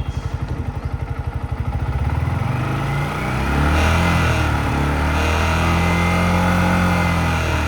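Yamaha MT-15's single-cylinder engine idling with a slow pulse, then revved up about two seconds in and held at high revs. This is the bike while it still had its head-area noise, which came in once the revs reached about 5,000–6,000 rpm.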